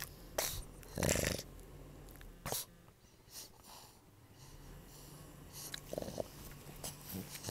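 A pug's noisy breathing: irregular snorts and snuffles through its short muzzle, the loudest about a second in.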